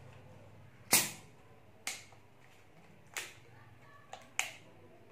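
Plastic bottle of Coca-Cola being unscrewed: five short, sharp hisses of gas escaping as the cap is loosened, the loudest about a second in.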